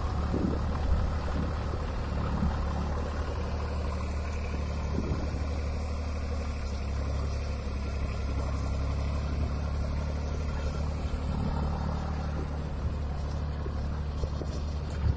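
ACE DI-450 tractor's diesel engine running steadily under load while pulling a mouldboard plough through dry soil.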